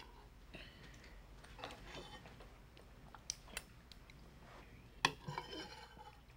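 Faint clinks and taps of cutlery and dishes at a table, with soft eating and movement sounds. There are a few sharper clicks, the loudest about five seconds in.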